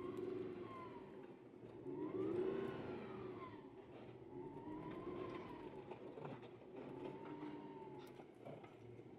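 Audi R8 engine pulling on the move, its note rising and falling in four swells as the throttle is applied and eased.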